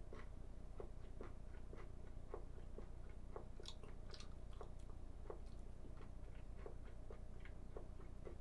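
Someone chewing crunchy Cheetos Pretzels, mini pretzels coated in cheese dust: a faint, steady run of small crunches, about two to three a second.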